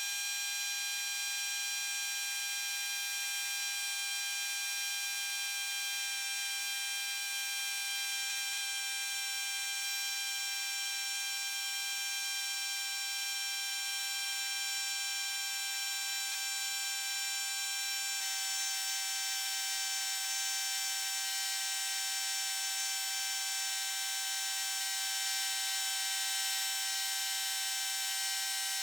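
Chicago Pneumatic CP-9361 air scribe running without a break, a steady high-pitched buzz as its stylus chips muscovite off a garnet-bearing rock. The pitch shifts slightly about two-thirds of the way in.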